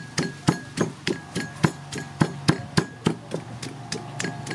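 Wooden pestle pounding in a large wooden mortar, about three to four sharp knocks a second, bruising long beans for papaya salad.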